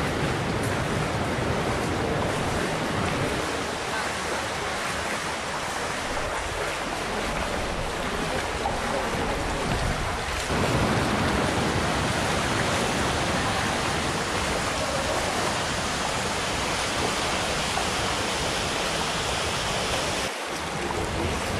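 Steady rushing noise of flowing and falling water mixed with wind on the microphone. The sound shifts in character about ten seconds in and again shortly before the end.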